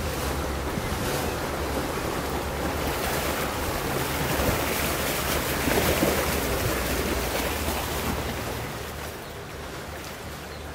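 Wake waves from passing motorboats washing against the riverbank, swelling about halfway through and then dying down, over a low hum of the boats' engines.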